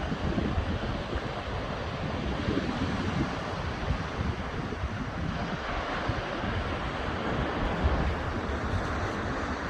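Ocean surf washing onto the beach, with wind buffeting the microphone in a low, fluttering rumble.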